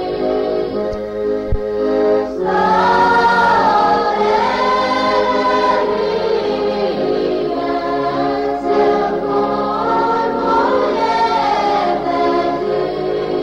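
Choral music: a choir singing slow, held notes in harmony.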